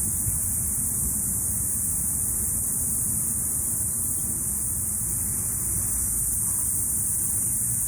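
Cicadas buzzing in a steady, unbroken high-pitched drone, over a quieter low, steady rumble.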